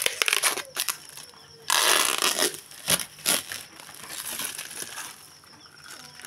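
Thin plastic bags crinkling and tearing as they are peeled off frozen blocks of chocolate ice, with one long loud rustle about two seconds in and a few sharp crackles after it.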